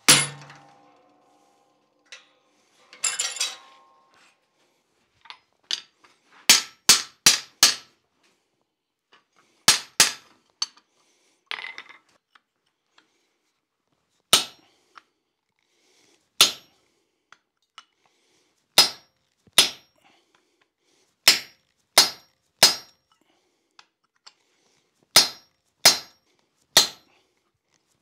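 Hammer blows on steel tools over a hot flat steel bar on the anvil: first a chisel under the treadle hammer, then a hand punch being driven into the red-hot bar. Each blow is a sharp metallic clink, coming singly or in quick runs of two to four with pauses between.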